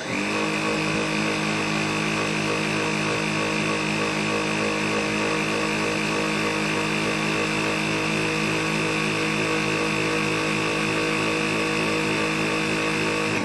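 Dyson V7 cordless stick vacuum running steadily on low power, its motor giving a steady high-pitched whine, with the Motorhead's brush roll spinning in a nozzle sealed onto an airflow test box.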